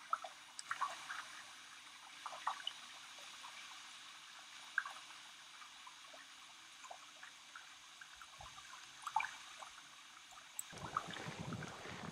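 Small wavelets lapping at a lakeshore: faint, scattered little splashes and drips. A louder low rushing sound comes in near the end.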